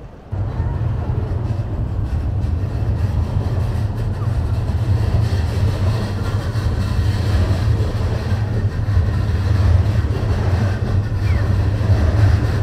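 Street traffic and a train running on the elevated railway overhead: a loud, steady low rumble that starts suddenly just after the beginning and cuts off suddenly at the end.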